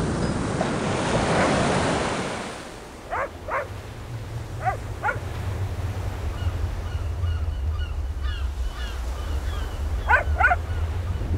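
A loud rushing hiss fades out over the first few seconds, giving way to surf breaking on a beach under a steady low rumble of wind. A dog barks in quick pairs three times, with faint high chirps between.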